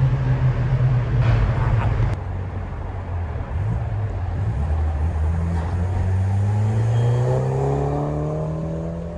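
Stage 2 Peugeot 208 GT's 1.6 THP turbocharged four-cylinder engine pulling hard. The sound drops off suddenly about two seconds in as the throttle closes, then the revs climb steadily again under acceleration.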